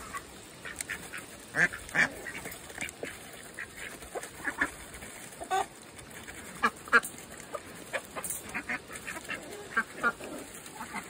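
Domestic ducks giving short, scattered quacks while they feed from a bowl of grain.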